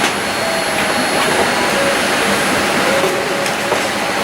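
Steady rushing noise in the cabin of a Boeing 787-8 Dreamliner with the doors closed for departure, with a few faint thin whines riding over it.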